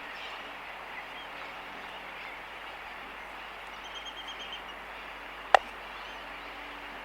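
Laysan albatross bill clicking at close range: a quick run of about eight clicks about four seconds in, then one sharp, loud clap about a second later. Behind it is a steady chorus of distant sooty terns.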